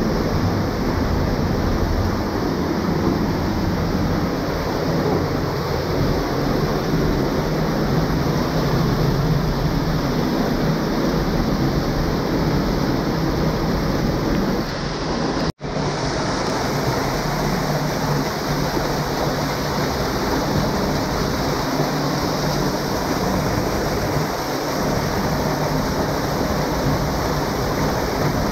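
Underground waterfall pouring down a limestone cave passage: a loud, steady rush of falling water that cuts out for a moment about halfway through.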